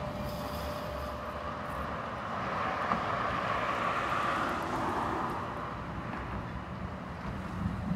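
Sheffield Supertram Siemens-Duewag tram pulling away, its steady motor whine fading out about a second in. A car then passes close by with a swell of road noise around the middle, the loudest part.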